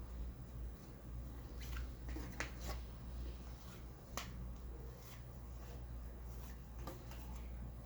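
Hockey trading cards being handled: about half a dozen short, sharp clicks and flicks of card against card, over a steady low hum.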